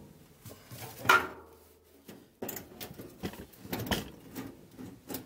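Clunks, knocks and clatter of handling the removed fuel tank and a plastic gas can, with a sharp knock about a second in and a run of smaller knocks in the second half.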